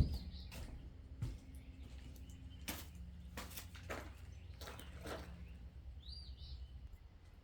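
Scattered light clicks and taps, with a sharper click at the start and a knock about a second in, over a low steady hum. A faint bird chirp sounds about six seconds in.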